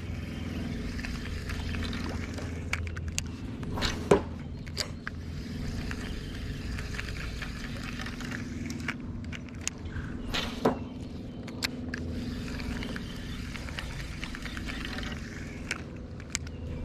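Casting and retrieving with a spinning rod and reel: reel handling and clicks, with two sharp sudden sounds about four and eleven seconds in that fit casts, over a steady low hum.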